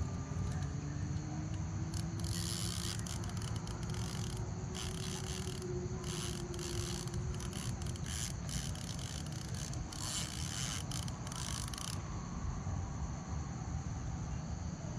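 Steady insect chorus, with irregular scraping and rasping that comes and goes from about two seconds in to about twelve seconds.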